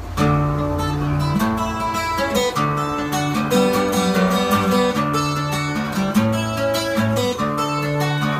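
A gitouki, freshly repaired, being strummed in steady chords as an instrumental lead-in. The playing starts abruptly just after the beginning.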